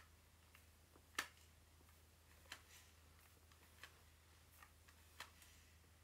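Near silence with a few faint, sharp clicks, roughly one every second or so, from a hair iron being clamped and worked through hair. A faint low hum runs underneath.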